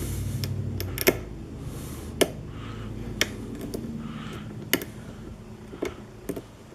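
Lock pick working the pins of a pin-tumbler lock under tension: irregular sharp clicks, about nine of them, with faint scraping between as pins set and drop in the final moments before the lock opens.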